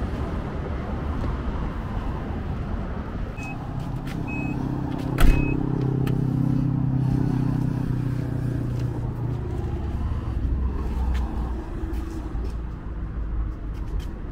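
Vehicle noise: three short high beeps, a sharp thump about five seconds in, then a steady low engine hum for several seconds that eases off.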